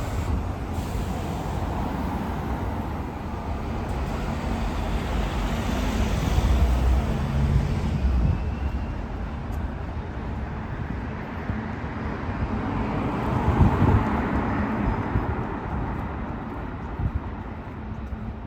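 Street traffic on a busy road: a steady low rumble of engines and tyres, swelling twice as vehicles pass close by.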